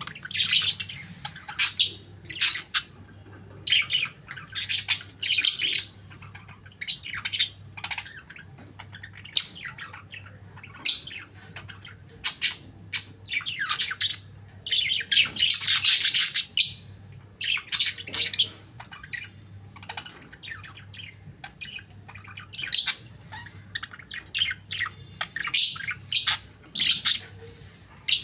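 Budgerigar chattering: a long run of short chirps and squawks, with a denser, louder stretch of warbling about fifteen seconds in.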